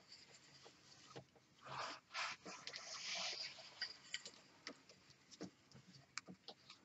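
Serving twine and a wooden serving mallet being worked around a parcelled rope: soft rubbing and scraping of the cord in a few short spells, with scattered light clicks and knocks of handling.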